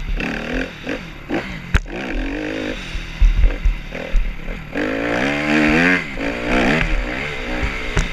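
Dirt bike engine revving up and down as the bike rides across sand, loudest and highest about five to seven seconds in, with wind buffeting the helmet-mounted camera's microphone.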